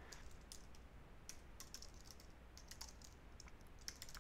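Faint typing on a computer keyboard: irregular single keystrokes and short runs of them as a line of code is entered.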